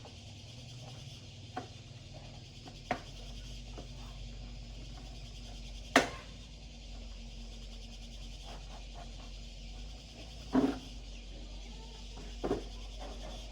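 Five sharp knocks and clicks of tools and parts being handled, the loudest about six seconds in, over a steady hiss and a low hum that starts about three seconds in.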